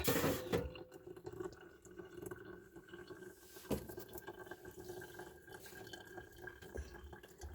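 Faint trickling and dripping of hot water as coffee is brewed, a little louder in the first half-second, over a faint steady hum.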